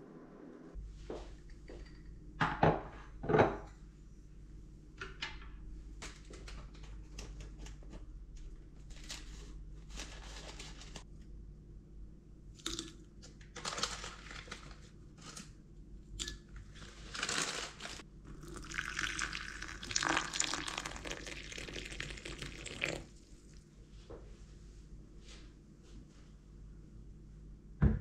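Handling sounds from making rose-bud tea in a glass cup: two sharp knocks about three seconds in, scattered clicks and rustles, and a few seconds of pouring liquid around twenty seconds in, over a steady low hum.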